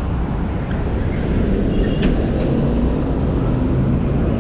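Steady low rumble of city traffic, with a brief high tone and two sharp clicks about two seconds in.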